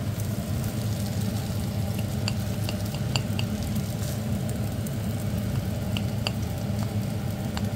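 Fried rice sizzling in a non-stick frying pan as a plastic spatula stirs and scrapes it, with scattered short clicks, over a steady low hum.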